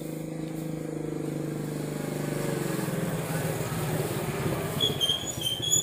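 A motor vehicle engine running nearby, a steady hum that grows gradually louder. A few short high chirps come near the end.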